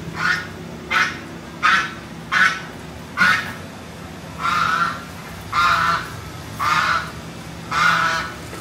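White domestic goose honking over and over, about once a second. The first calls are short and clipped, and from about halfway through they become longer and drawn out.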